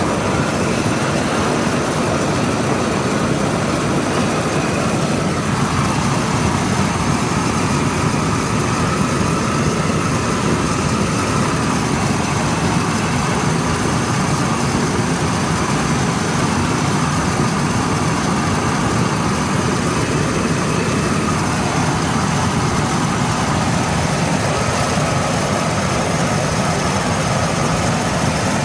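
Long-handled propane burner torch running at full flame, a steady rushing roar that holds at one level throughout.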